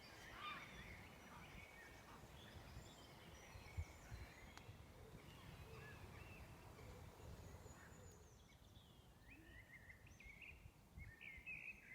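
Faint birdsong from several birds: scattered short chirps and calls, a little louder near the end, over a low rumble.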